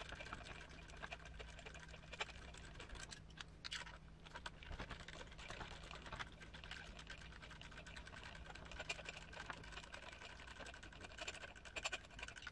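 Faint, scattered small clicks and taps of hand tools and small metal parts being handled while an RC truck's front suspension is worked on. A faint low hum runs underneath and stops near the end.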